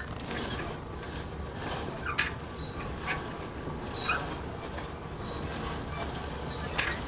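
Electric sailboat winch furling in the self-tacking jib: a steady mechanical run with scattered clicks and knocks from the winch and furling gear.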